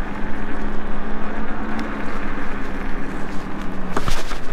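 iSinwheel GT2 electric scooter riding along a pavement: wind rushes over the microphone and the tyres roll under a steady low hum from the scooter. The hum stops about four seconds in and is followed by a few sharp knocks.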